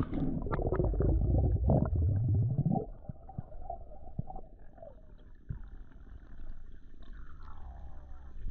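A spearfishing diver going under the surface of a freshwater reservoir: a rush of splashing and bubbling with many small clicks for about three seconds, then quieter, muffled underwater sound with a few faint gliding tones.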